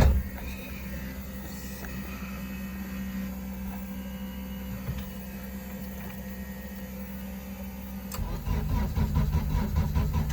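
A click, then a steady electric hum; about eight seconds in, the starter begins cranking the K-series engine in a fast, even rhythm without it firing. It is a crank-no-start that the owner puts down to no spark.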